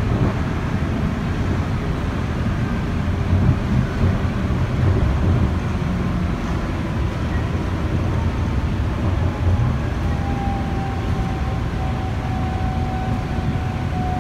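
Inside a moving airport people-mover train: a steady low rumble from the running gear, with a faint motor whine that slowly falls in pitch over the second half as the train slows.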